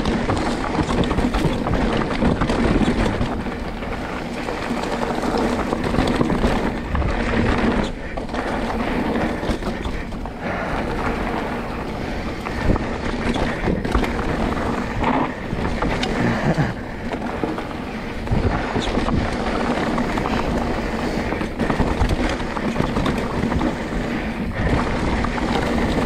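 Wind buffeting the microphone and mountain-bike tyres rolling over a dirt singletrack, with the bike rattling over bumps and roots.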